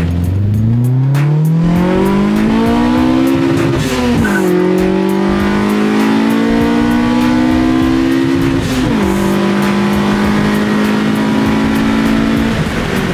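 Nissan SR20VE Neo VVL four-cylinder engine pulling hard at full throttle through the gears. The revs climb steeply for about four seconds, drop at an upshift, climb again more slowly, drop at a second upshift near the nine-second mark, then fall away near the end as the throttle is lifted.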